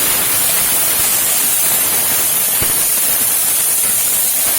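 Hot oil with mustard seeds sizzling in a pan, tempering for rasam, as a steady hiss; a single sharp pop about two and a half seconds in.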